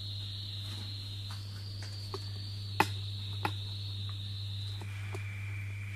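Quiet handling sounds as dough balls are rolled in chopped peanuts and set on a baking tray: faint taps and two sharper clicks about three seconds in. Under them runs a steady high-pitched whine and a low hum.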